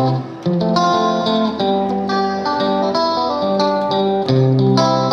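Instrumental background music: a melody of plucked notes over a steady run of chords.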